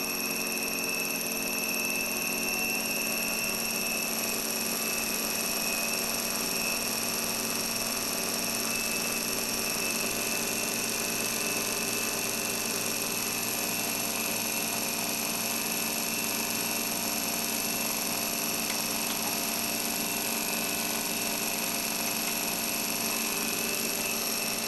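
CR-Kromrey converter with both counter-rotating armatures spinning, a steady running whine made of several held tones that stays even throughout.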